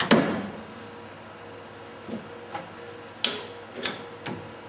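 Steel spanner and tooling clanking on a CNC lathe's toolpost during a tool change: one loud ringing metal clank at the start, then several lighter metallic clicks and clinks.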